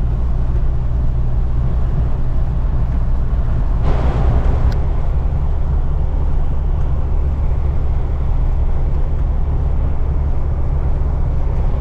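Steady low rumble of a car driving, heard from inside the cabin, with a brief louder rush about four seconds in.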